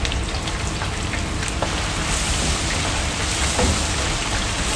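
Hot oil in an electric deep fryer bubbling and sizzling hard around a basket of floured small fish and shrimp just lowered in: the first minutes of deep-frying. A steady hiss with scattered crackles, more of them in the first couple of seconds.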